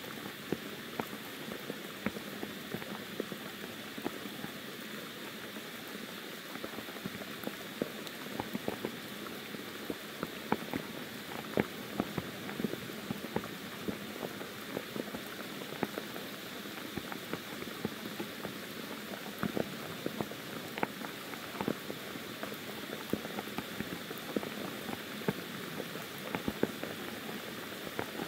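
Monsoon rain pouring steadily on forest foliage: a continuous hiss with many sharp, close drops ticking through it.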